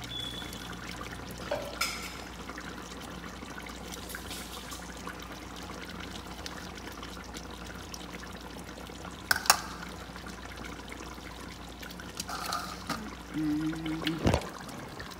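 Fish in sauce simmering in a pot, a steady low bubbling and trickling. A spoon knocks sharply against the pot about nine seconds in, and there are a few short clatters and a brief low hum near the end.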